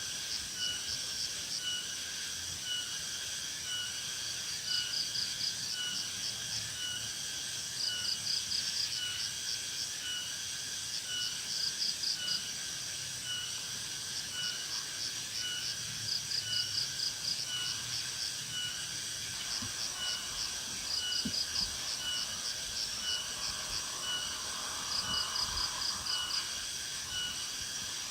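Insects chirping in a steady, regular series of short high chirps, with a faster trill of chirps breaking in every three to four seconds.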